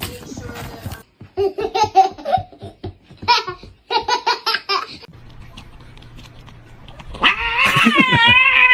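A person laughing in short bursts, then near the end a cat's long, wavering yowl.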